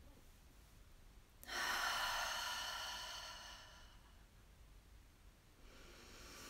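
A woman's deliberate breath in a breathing exercise: a loud, airy exhale through the mouth begins suddenly about a second and a half in and fades away over about two seconds. A fainter breath follows near the end.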